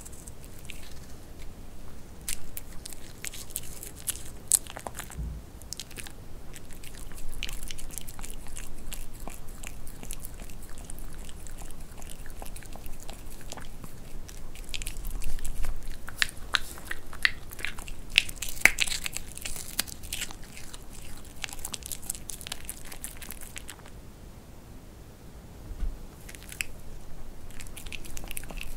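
Pomeranian biting and chewing dried vegetable chips, a run of many quick crisp crunches. The crunching is thickest in the middle and eases off briefly near the end.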